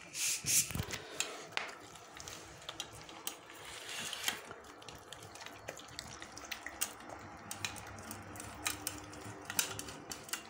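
Two dogs eating wet dog food from stainless steel bowls: wet smacking, licking and lapping, with many quick irregular clicks as they eat.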